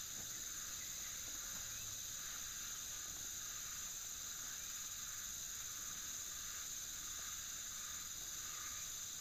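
Steady chorus of insects, an even high-pitched drone that goes on without a break.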